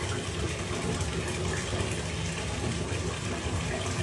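Water poured from a plastic cup splashing steadily over a wet cat's head and into a bathtub.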